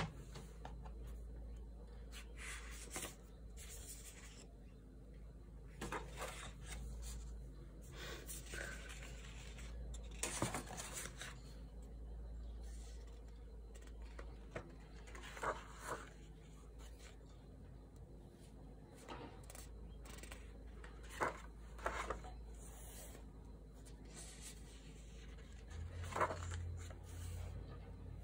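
Sketchbook paper pages being handled and turned by hand: faint, scattered rustles and scrapes every few seconds, over a steady low hum.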